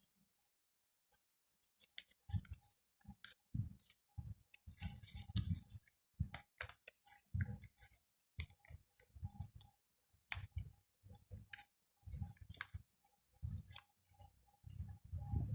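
Sheet of origami paper being folded and pressed into shape by hand: irregular crisp crinkles and rustles, starting about two seconds in.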